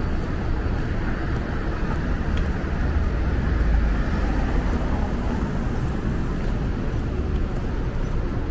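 City street traffic: a steady rumble of passing vehicles, swelling for a moment about three to four seconds in.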